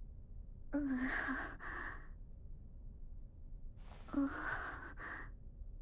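A young female voice giving two soft, breathy sighs about three seconds apart, each beginning with a brief hum of voice.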